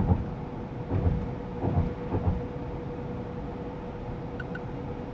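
Steady drone of a GAZ Sobol van driving, heard inside the cabin, with a steady hum and a few dull thumps in the first couple of seconds.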